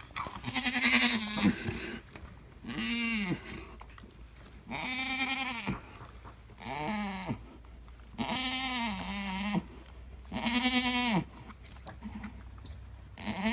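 Alpine goats bleating: about seven short calls, each rising and then falling in pitch, a second or two apart.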